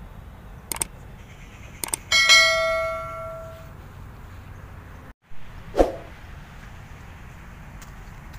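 Subscribe-button overlay sound effect: two mouse clicks, then a notification bell dings once and rings out for about a second and a half. A dull thump follows a few seconds later.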